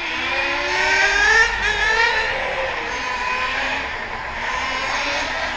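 Several RC racing motorcycles running on the circuit, their motors whining with several overlapping pitches that rise and fall as the bikes accelerate and slow through the corners.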